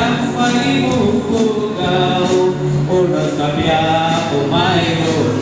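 Loud music with singing: a sung melody held over an accompaniment, played for a group dance.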